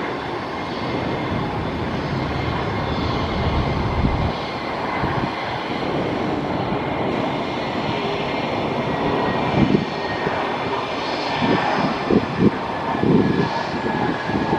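Airbus A320-232's IAE V2500 turbofan engines running at approach power as the airliner flies past on final approach: a steady jet rumble and hiss. A few short low thumps come in the last few seconds.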